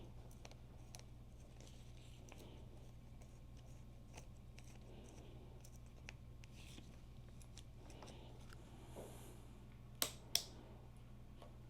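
Quiet hands-on work on a motorcycle: faint scattered clicks and scrapes of parts and tools being handled, over a low steady hum. Two sharp clicks in quick succession near the end.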